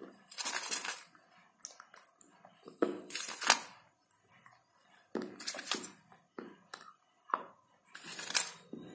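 Close-up crunching and cracking of dry clay and slate pieces being bitten and chewed, in about four short bursts with quiet gaps, the sharpest crack about three and a half seconds in.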